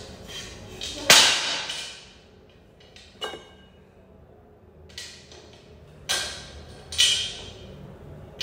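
Metal tubes of a clothes stand clanking and knocking during assembly: about five sharp knocks with short ringing tails, the loudest about a second in.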